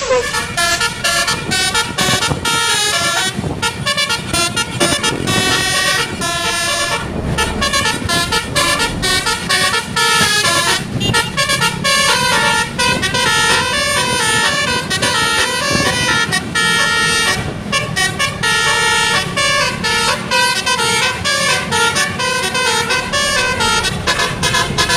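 Tour bus's 'telolet basuri' multi-note musical horn playing a long, fast melody of stepping notes, with a few brief breaks between phrases.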